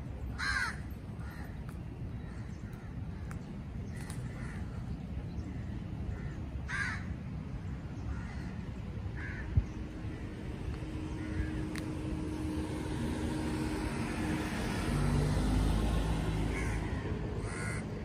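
Crows cawing now and then, the loudest calls near the start and about seven seconds in, over a steady low traffic rumble. A vehicle passes, loudest about fifteen seconds in.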